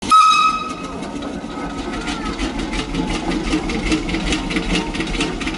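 Machinery running with a regular clatter of about three beats a second over a steady low hum, opening with a brief high tone.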